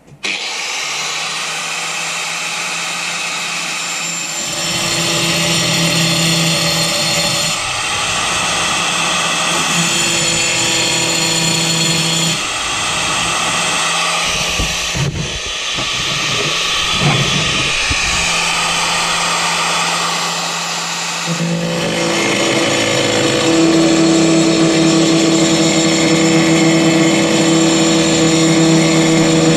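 Handheld power cutter with a blade for tile running with a steady motor whine, its pitch and load shifting several times. About twenty seconds in it gets louder and stays loud as the blade cuts through a ceramic wall tile.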